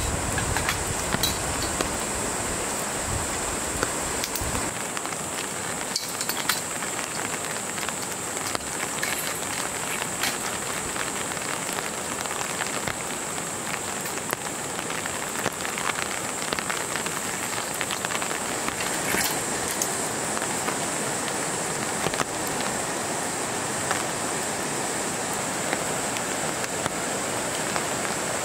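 Steady rain falling on the tent canvas and the ground, with scattered light clicks and clinks of aluminium tent poles being handled.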